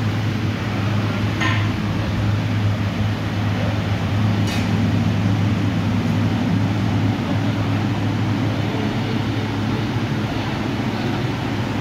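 Mortuary cabinet's refrigeration unit running: a steady low hum with fan noise. Two short clicks come about one and a half and four and a half seconds in.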